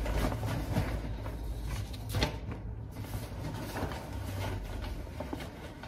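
Rustling and handling of a wrapped ream of A4 paper being pushed into a fabric backpack, with a few sharp knocks, the clearest about two seconds in.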